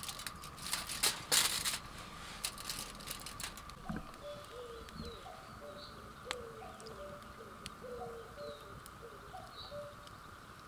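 Aluminium foil crinkling and rustling for the first few seconds, then a pigeon cooing in repeated short phrases, over the sharp crackles and pops of a wood fire.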